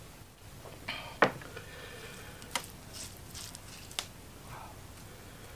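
Close-up eating sounds of a person chewing spicy chicken, with a few sharp wet smacks or clicks. The loudest comes about a second in, and two more come later.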